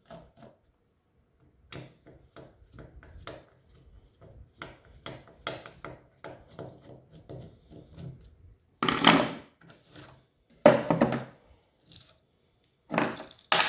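Screwdriver working the terminal screws of a diode rectifier assembly on an aluminium heatsink: a run of small metal clicks and ticks, then a few louder rubbing and knocking noises starting about nine seconds in.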